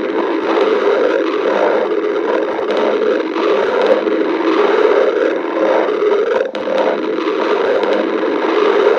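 A hungry stomach growling: a continuous gurgling rumble, with a brief drop about six and a half seconds in.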